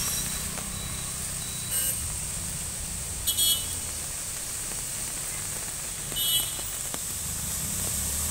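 Road traffic running steadily, with short vehicle horn beeps about two seconds in, a double beep near the middle and another about six seconds in.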